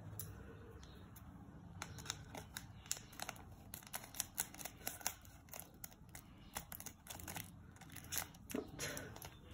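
A small plastic sachet of glitter crinkling as it is handled and snipped open with scissors: a faint, irregular run of small crackles and clicks.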